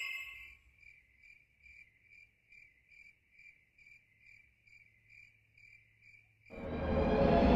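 A cricket chirping steadily and faintly, a little over two chirps a second, as a night ambience. Near the end a loud, low, rumbling drone swells in: the start of Siren Head's siren call.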